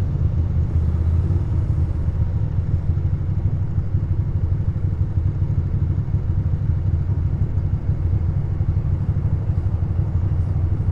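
2006 Ducati Monster 620's air-cooled L-twin engine idling steadily while the bike stands at a stop.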